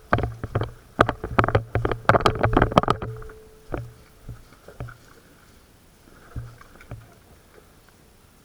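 Airsoft gun firing: a run of sharp, rapid clacks over a low motor hum for about three seconds, then a few single clacks.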